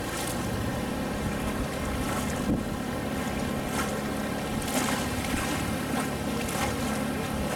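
Motorboat engine running steadily under way, with water rushing and splashing against the hull and wind on the microphone.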